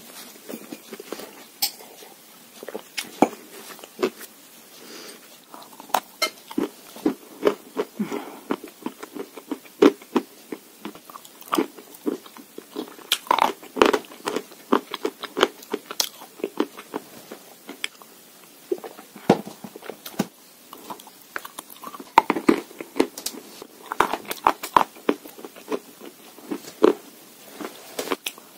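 A person biting and chewing chalk with Uzbek clay: an irregular run of sharp crunches, busiest about halfway through and again toward the end.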